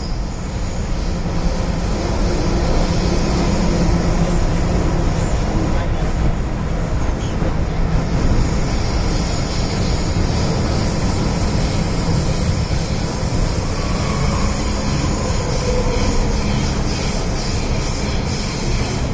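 MTR M-Train subway car running at a steady speed, heard from inside the carriage: a continuous, even rumble of wheels on rail and running gear.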